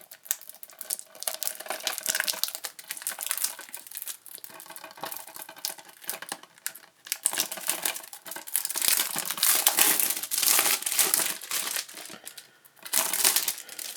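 Plastic wrapping being torn and crumpled off a Blu-ray case: an irregular crinkling and crackling, loudest in the second half.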